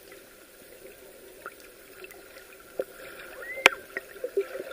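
Sea water sloshing and gurgling around the camera at the surface, with a few sharp clicks and faint distant voices near the end.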